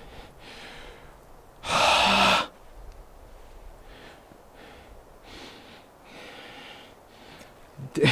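A man breathing hard in a run of soft breaths, with one loud, long exhale about two seconds in.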